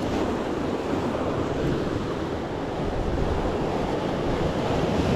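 Sea surf washing on the shore with wind buffeting the microphone: a steady rushing noise, swelling slightly near the end.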